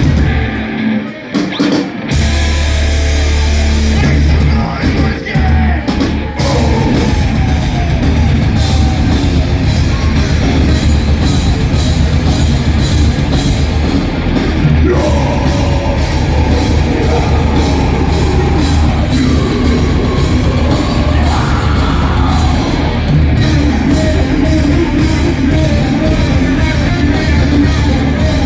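Heavy metal band playing live: distorted guitars, bass and drum kit, with yelled vocals. The first few seconds are stop-start hits with short gaps, then the full band plays on without a break.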